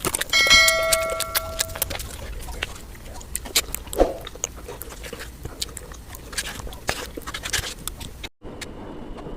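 Close-up eating sounds: biting, chewing and repeated short clicks of food and utensils. Near the start a dish is struck and rings for about a second and a half.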